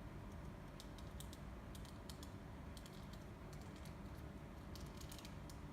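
Small, irregular plastic clicks and taps as parts of a collectible figure are handled and its outfit pieces fitted on, over a steady low hum.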